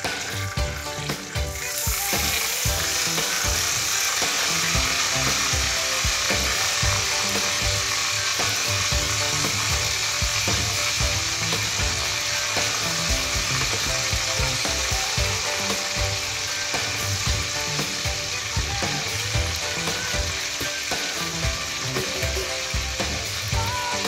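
Marinated chicken leg pieces sizzling and frying in hot oil in a wok. The sizzle jumps up suddenly about two seconds in, as the chicken goes into the oil, and then runs on steadily.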